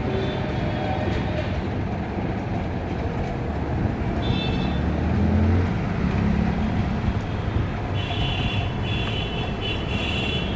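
Road traffic noise: a steady rumble of passing vehicles, with brief high-pitched tones about four seconds in and again near the end.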